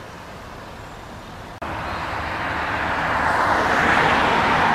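Road traffic noise. After a sudden jump in level about a second and a half in, the sound of a motor vehicle swells steadily louder as it draws near.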